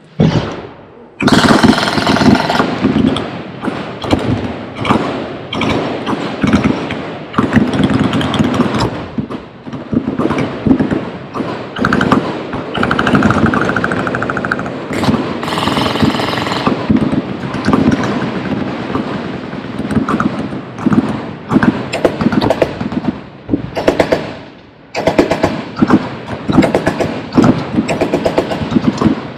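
Many machine guns on a firing line opening up together about a second in, then dense, overlapping automatic fire with only brief pauses, easing for a moment about five seconds before the end before picking up again.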